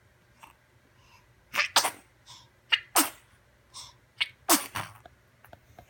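Three sneezes in a row, about a second and a half apart, each preceded by a short breath in.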